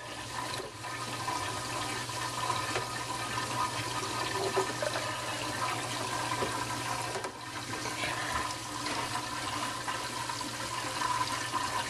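Steady flow of water running through reef aquarium plumbing, with a low steady hum underneath.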